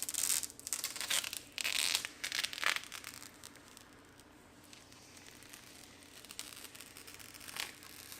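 Protective plastic film being peeled off a PC case's glass side panel: crinkling, tearing rustles in bursts over the first three seconds, then quieter, with another burst near the end.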